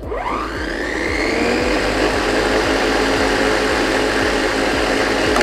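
WORX WG779E.2 40V lithium-ion cordless lawn mower's electric motor and blade spinning up with a rising whine over the first second and a half, then running steadily until it is switched off at the end.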